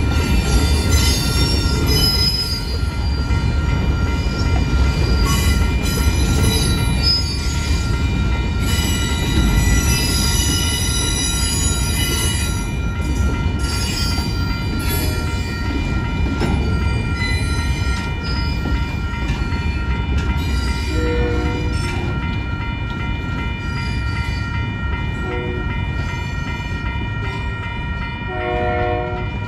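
Freight cars of an Arizona Eastern Railway train rolling through a grade crossing, with a steady rumble and squealing wheels, while the crossing bell rings continuously. The rumble eases as the last cars pass, and a few short low tones, like a horn, sound near the end.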